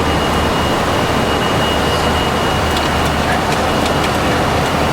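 Steady rushing noise of airflow and engines inside a Boeing 737-300 flight deck in the climb, with a thin steady high-pitched tone over it.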